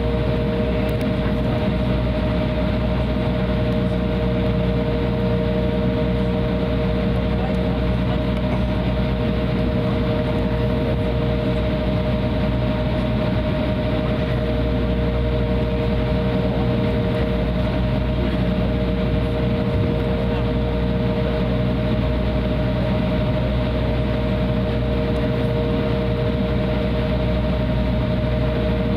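Steady cabin noise of an Embraer 175 taxiing, heard from a seat behind the wing: its twin jet engines running at low taxi thrust with an even rushing hum and two steady mid-pitched tones.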